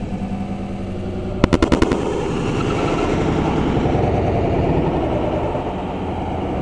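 Fireworks going off: a rapid string of about six sharp bangs within half a second, about one and a half seconds in, over steady background noise.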